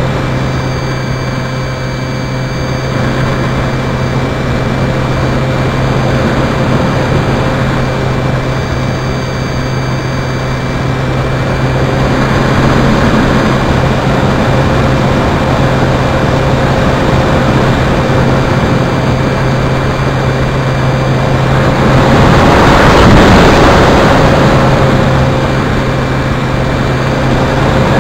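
Onboard sound of a flying RC model airplane: the motor and propeller running with a steady hum, under loud wind rush on the camera's microphone. The rush swells about 22 seconds in, as the low hum fades.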